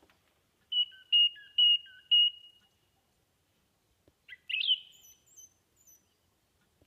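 Thrush singing: a clear whistled note repeated four times in quick succession, each with a lower note beside it, then after a pause a short shrill, squeaky phrase with very high thin notes.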